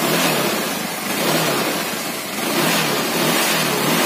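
Automatic scooter's engine and CVT running and revved up and down several times, with a new variator roller bowl and roller weights fitted to cure a rough juddering drive; it now runs far smoother.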